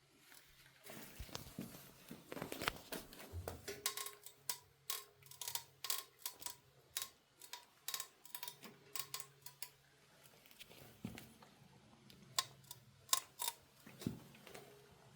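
Irregular, rapid clicking and ticking from an L26 device: the unwanted noise it is making. The clicks come thick for most of the first ten seconds, then as scattered sharp clicks over a faint low hum.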